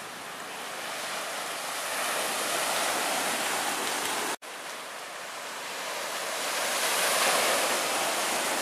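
Small sea waves breaking and washing up on a sandy beach, a steady rush that swells twice, with a momentary dropout a little over four seconds in.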